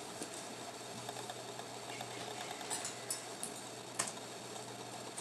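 Room tone: a steady low hum under even background noise, with a few light clicks in the second half.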